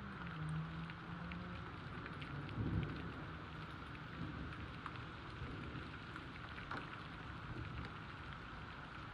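Steady rain with scattered drops ticking, and a brief low rumble about two and a half seconds in.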